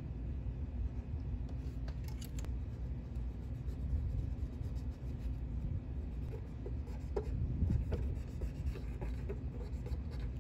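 Cotton swab scrubbing flux residue off solder joints on a circuit board: faint scratchy rubbing strokes from about halfway in, over a steady low hum, with a few sharp clicks near the start.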